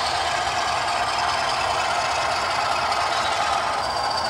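Model diesel locomotive running along a curved track, giving a steady mechanical running noise.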